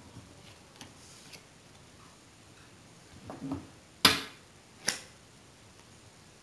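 Playing cards handled on a wooden tabletop: faint clicks and rustling as the cards are gathered, then two sharp clacks about a second apart, the first the louder, as the deck is squared.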